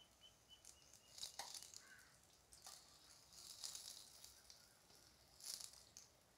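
Very faint: brinjal bajjis deep-frying in hot oil, with a few brief hissing scrapes as a slotted spoon turns them in the kadai.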